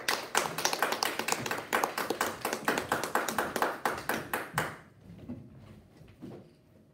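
Applause from a small audience, a few people clapping quickly and unevenly, dying away about two-thirds of the way through. A few faint taps follow.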